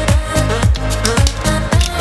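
Background electronic dance music with a steady, fast beat and a bass line.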